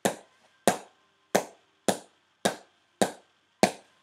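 A leather cricket ball bounced repeatedly off the face of a Gray-Nicolls X181 junior willow cricket bat: seven sharp cracks, about one every 0.6 seconds, each dying away quickly. The bat's sound is being shown off, and the owner calls it beautiful, the ball exploding off the bat.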